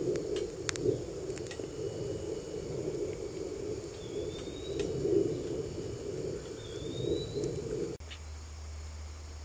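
Twig fire burning in a stainless steel twig stove: a steady rushing of flames with a few sharp crackles. It cuts off suddenly about eight seconds in, leaving a faint low hum.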